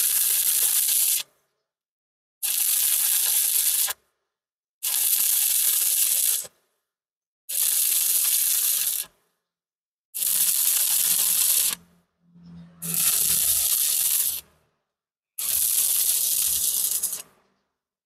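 Stick (shielded metal arc) welding arc crackling on steel square tube. It comes in seven runs of about a second and a half each, with the arc going quiet for about a second between runs.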